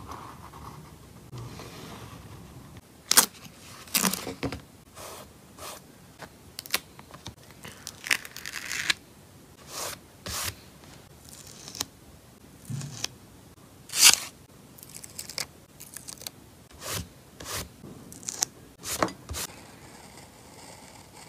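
Close-up paper-craft sounds: paper, tape and sticker sheets being handled, torn and scraped, in a string of separate sharp crackling strokes, the loudest about three and fourteen seconds in. Near the end a craft knife scores along a washi-tape sheet.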